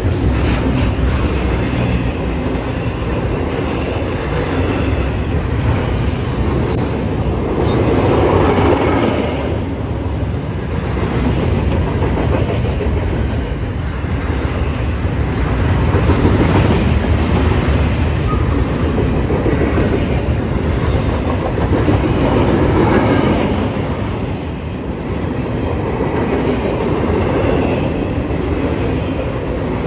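Intermodal freight train's double-stack container and trailer cars rolling past at speed: a steady, loud rumble of steel wheels on the rails that swells louder a few times as cars go by.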